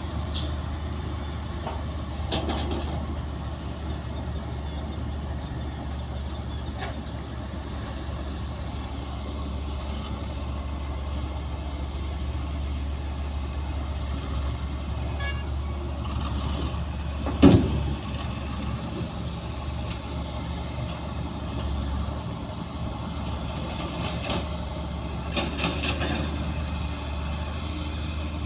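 Heavy diesel machinery engine running steadily at a low drone, with a few short metallic knocks and clanks, the loudest about 17 seconds in and a cluster near the end.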